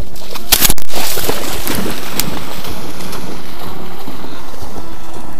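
A shotgun shot about half a second in, loud enough to clip, with a fainter second shot about two seconds in, then wind noise on the microphone.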